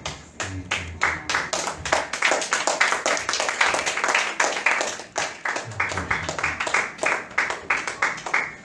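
Hands clapping in a steady, fast rhythm, about four to five claps a second, stopping near the end.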